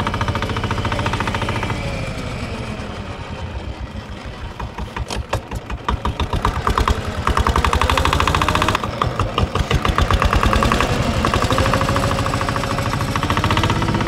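Small boat engine running steadily with a fast, even knocking beat.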